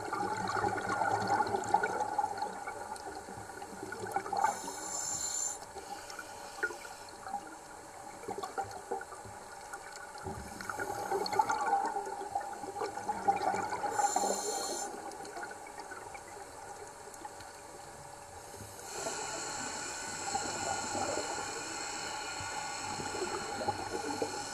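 Scuba divers' exhaled air bubbling out of their regulators underwater, coming in several surges a few seconds apart.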